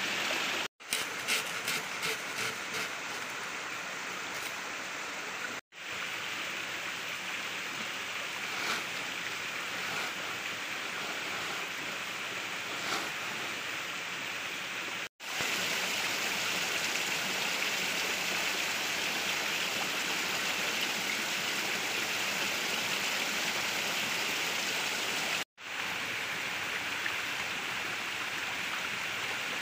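Mountain stream flowing in a steady rush of water noise that cuts out for a split second four times. A short run of light knocks comes in the first few seconds.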